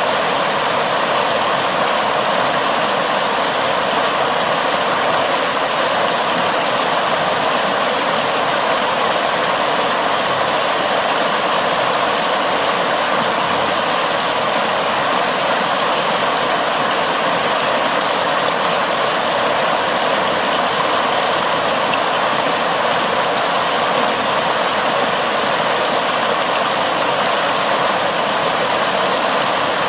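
Fast floodwater rushing and churning into whitewater over the edge of a concrete slab: a loud, steady rush without breaks.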